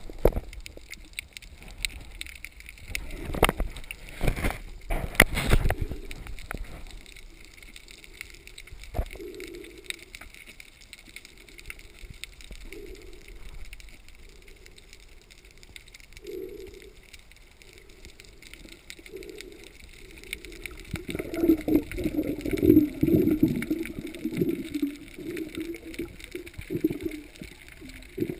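Muffled underwater sound heard through a GoPro's waterproof housing. There are several loud knocks in the first few seconds, then low pulses of water noise every few seconds that grow louder and busier about three-quarters of the way through.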